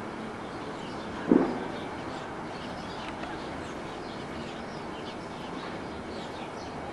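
Small birds chirping faintly over a steady background hiss, with a single dull thump about a second in.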